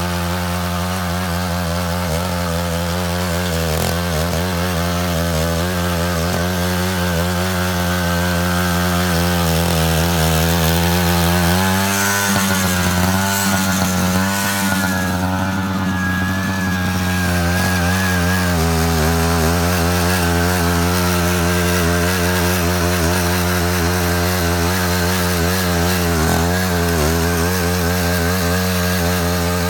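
Walk-behind power tiller's small engine running steadily under load while trenching, its pitch wavering for a few seconds about halfway through.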